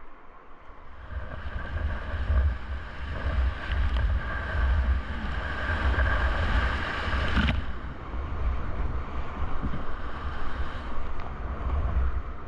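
Whitewater rapid rushing and splashing around a kayak, with heavy low buffeting on the camera microphone; the higher part of the rushing hiss drops off sharply about seven and a half seconds in.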